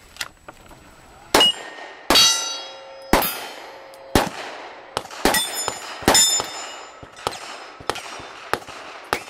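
A string of gunshots fired about once a second at steel targets, with the steel plates ringing after the hits.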